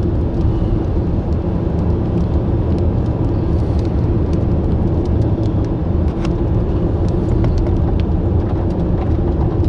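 Steady engine and road rumble inside a moving car's cabin, with light scattered ticks.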